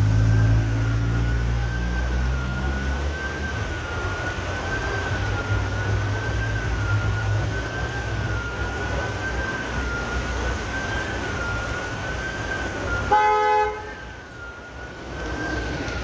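A warning siren holding one slowly wavering tone over the hiss of rain and wet traffic. A car engine rumbles in the first few seconds, and a car horn toots once, loudly, about 13 seconds in.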